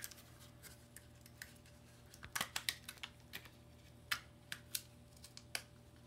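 Scattered small clicks and taps as a replacement RAM module is handled in gloved hands, several close together about halfway through, then single ones.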